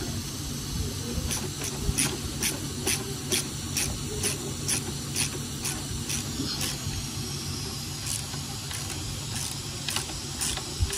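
Hand ratchet clicking at an even pace of about two clicks a second as intake manifold bolts are run down, then a few scattered clicks. A steady hum and hiss run underneath.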